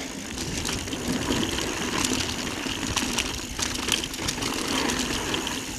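Mountain bike riding fast down a dirt trail: tyres rolling over the ground and the bike rattling, with a steady mechanical buzz.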